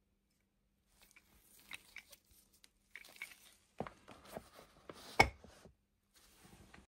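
Metal tool being handled and worked, most likely the restored pipe cutter: irregular light clicks and scrapes, with one sharp metallic knock a little after five seconds.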